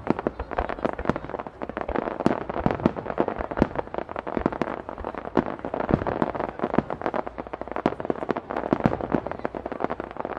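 Starmine fireworks barrage: many shells bursting in quick, irregular succession, sharp bangs and pops over a continuous dense din.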